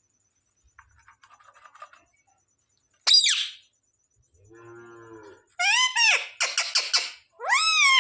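Pet parrot calling: faint clicking, then a sharp high squawk about three seconds in, a lower buzzy call, and a run of loud rising-and-falling calls and chattering in the second half.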